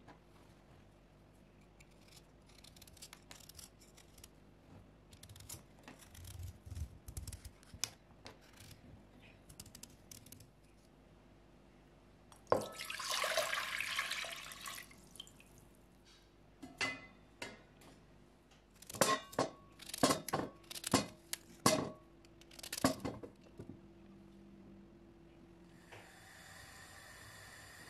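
Water poured from a glass jug into a pot, splashing for about two and a half seconds, among scattered light taps and a run of sharp knocks and clatters of kitchen handling. A steady hiss starts near the end.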